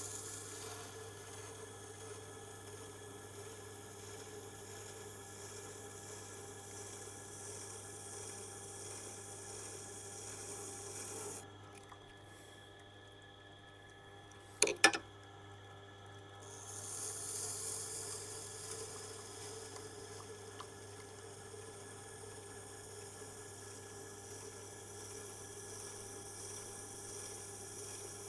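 Hard tool-steel oboe reed scraping tool being ground on a Tormek's 220-grit stone: a steady scraping hiss over a constant low hum from the grinder. Near the middle the grinding stops for about five seconds, broken by two quick sharp clicks, the loudest sounds, then starts again.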